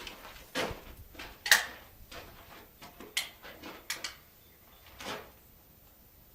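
Hatfield .410 single-shot break-open shotgun being handled before firing: a string of sharp mechanical clicks and clacks from the action, the loudest about a second and a half in.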